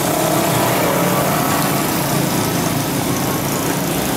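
A small engine running steadily, over a high, even hiss.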